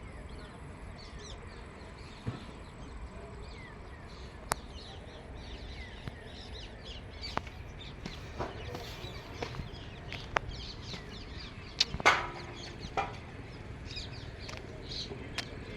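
Scattered sharp knocks and clicks, loudest about twelve seconds in, over a steady background hiss, with faint bird chirps.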